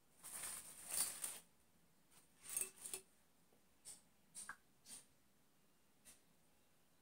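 Soft rustling of artificial flower stems being handled and pushed into a vase, in two short spells, followed by a few brief light clicks and taps.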